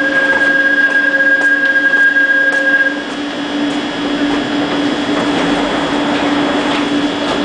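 Korail commuter electric train halting at a platform: a steady high-pitched brake squeal that cuts off about three seconds in as the train comes to rest, over a steady low hum from the standing train's equipment.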